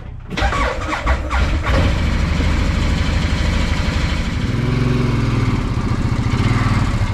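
Cold UTV engine cranking for about a second and a half, catching, and running steadily, its pitch rising for a couple of seconds midway. It is a cold start, with the machine frosted over.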